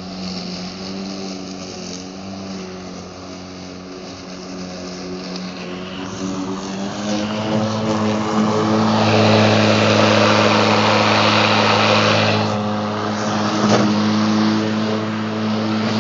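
Cordless electric lawn mower running with its blade cutting grass: a steady motor hum, joined from about seven to twelve seconds by a louder rush of cutting that then drops back.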